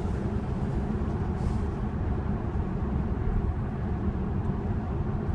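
Steady tyre roar and wind noise inside the cabin of a Tesla electric car cruising at motorway speed, a constant low rumble with no engine note.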